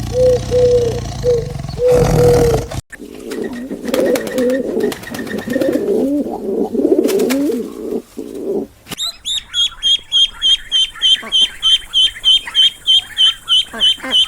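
A sequence of bird calls: a repeated low note, then wavering low cooing calls, then a rapid run of high chirps, about four a second.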